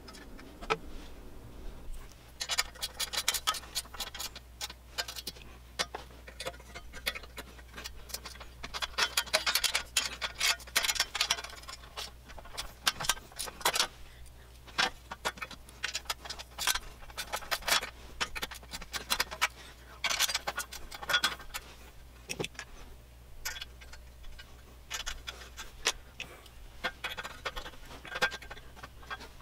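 Irregular clusters of small clicks and rattles from hand tools and metal parts as a scroll saw's table and lower blade holder are being taken apart.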